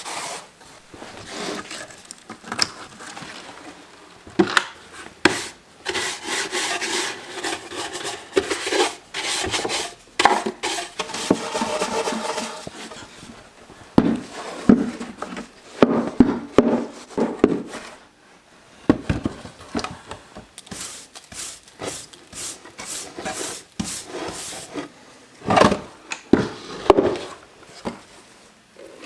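Hand rubbing and scrubbing strokes on the surface of a vintage wooden toolbox, irregular and uneven, with a squeaky pitched tone through some strokes in the first half.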